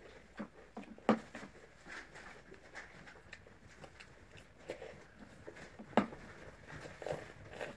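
Metal spoons tapping and scraping in plastic cereal bowls: scattered small clicks, with two sharper knocks about a second in and about six seconds in.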